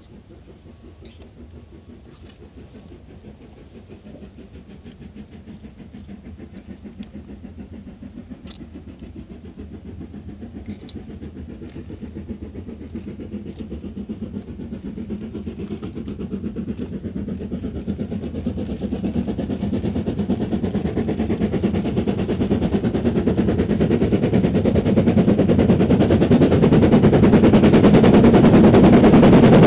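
Stanier 8F 2-8-0 steam locomotive working hard with a goods train. Its exhaust beats come in a rapid, even rhythm and grow steadily louder as it approaches.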